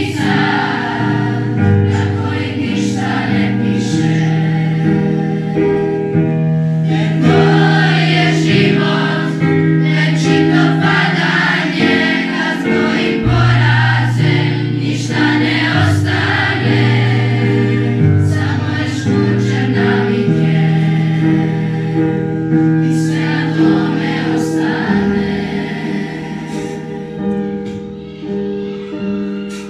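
A children's choir singing a song together to a keyboard accompaniment, the music tapering off near the end.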